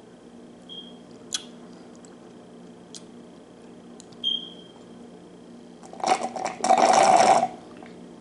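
Eggnog cocktail sipped through a straw from a nearly empty wine glass: a few faint clicks, then a loud slurp of about a second and a half near the end as the straw draws air with the last of the drink.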